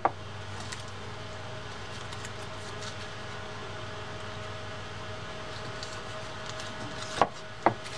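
Steady low hum of room background noise with a faint held tone, and two sharp clicks near the end as the reel is handled.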